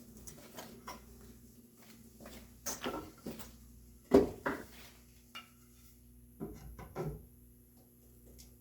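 Scattered wooden knocks and clunks of red oak workpieces being handled while a tenon is tried in its mortise. The loudest come as a close pair about four seconds in, with smaller groups of knocks before and after.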